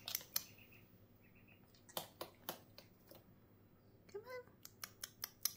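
Quiet, scattered clicks of a dog's claws on a laminate floor as a Labrador steps about. Faint short peeps come in the first two seconds, and a brief rising call about four seconds in.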